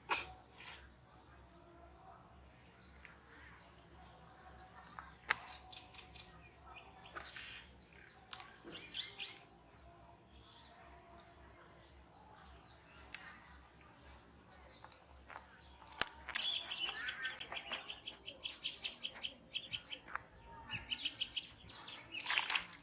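Birds chirping, quietly at first, then a fast run of repeated high chirps over the last several seconds, with a couple of sharp clicks.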